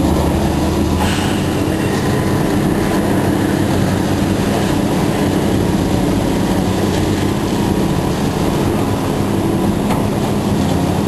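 Heavy scrapyard machinery working on the old truck: a steady engine drone under an even grinding din of metal, with a few faint sharp knocks of metal.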